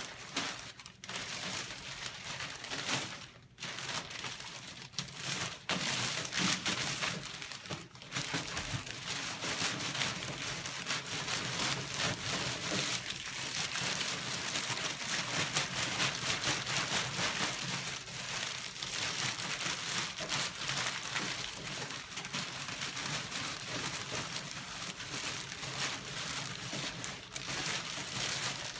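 Large plastic baler bag crinkling and rustling for the whole stretch as it is handled and pulled over the baler's bale chamber, with many small crackles.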